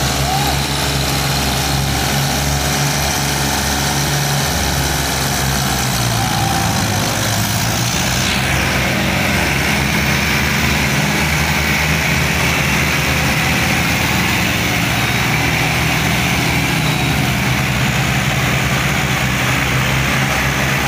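Several diesel farm tractor engines running steadily under load, chained together and pulling a loaded trailer through mud.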